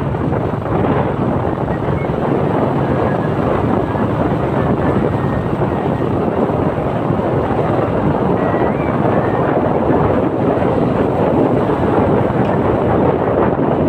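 Steady rush of wind over the microphone from a moving motorcycle, with the motorcycle's engine running underneath.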